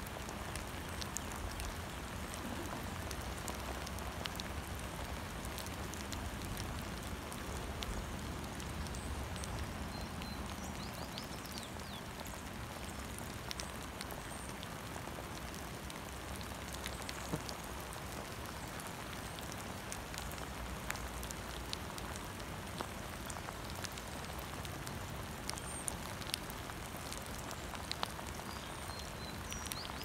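Steady rain falling, with individual drops ticking close by. A few short, high bird chirps come through about ten seconds in and again near the end.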